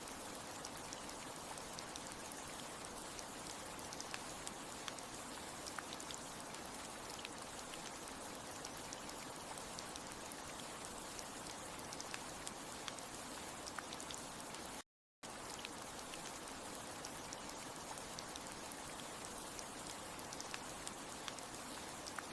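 Steady rain, an even hiss full of small drop ticks. It cuts out completely for a split second about fifteen seconds in.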